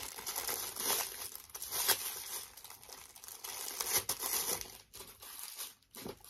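Plastic packaging crinkling and tearing as it is pulled open by hand, an irregular rustle with sharp crackles that thins out near the end.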